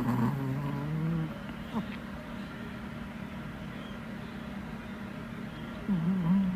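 A small dog snoring: one snore about a second long at the start and another, wavering snore near the end, over a steady low hum.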